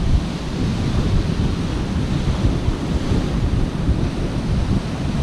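Strong wind buffeting the microphone in low, uneven gusts over the steady rush of surf breaking on the beach.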